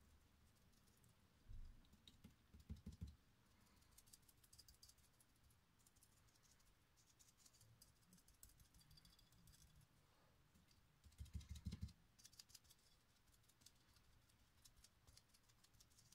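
Near silence with faint scattered ticking and scratching of a round foam sponge dauber being dabbed onto a gesso-coated glass vase, and a few soft low knocks, twice near the start and once in the second half.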